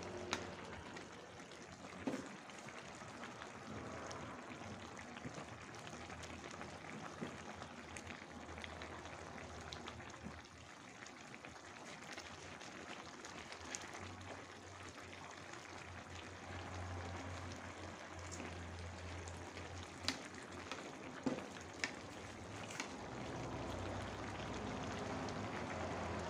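Cap cay broth simmering in an aluminium wok over a gas burner, a steady bubbling hiss, while a metal ladle stirs it and knocks against the pan a few times, sharpest about 20 to 23 seconds in.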